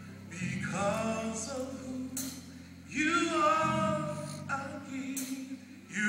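Male gospel singer leading a slow gospel song, with long held notes in sung phrases over a steady low accompaniment, heard from the seats of a large hall.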